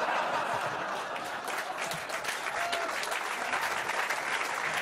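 Audience applauding: dense, steady clapping after a punchline.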